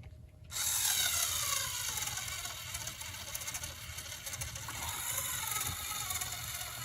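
Lego XL motor driving a custom four-wheel-drive Lego Technic tractor's geartrain, a whirring gear whine that starts about half a second in. Its pitch sags as the tractor labours up a steep cardboard slope, then rises again.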